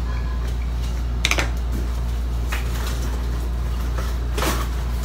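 Groceries being unpacked by hand from a cardboard box: short rustles and knocks about a second in and again near the end, over a steady low hum.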